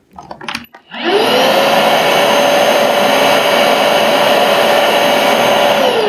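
Viomi A9 cordless handheld vacuum cleaner switched on at its power button: a few light clicks, then about a second in the motor spins up with a rising whine. It settles into a steady hum and hiss, running in the default eco (low-suction) mode that it starts in at power-on.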